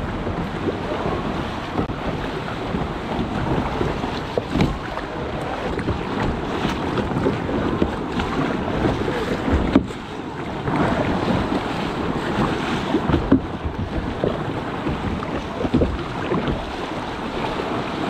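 Sea water splashing and sloshing against a kayak's hull as it is paddled through choppy swell, with wind buffeting the microphone.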